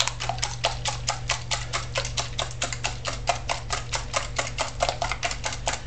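Wire whisk beating eggs and softened cream cheese in a bowl: quick, even clicking of the whisk against the bowl at about five strokes a second. A steady low hum from the stove runs underneath.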